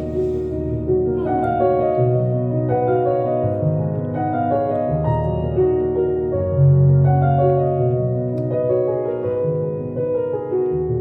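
Background piano music: slow sustained chords over a low bass line, changing every second or two.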